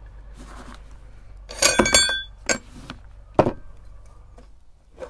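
Metal parts of a hand-cranked meat grinder, around its perforated cutting plate, clinking: a quick run of sharp, ringing metal clinks about one and a half seconds in, then two single knocks.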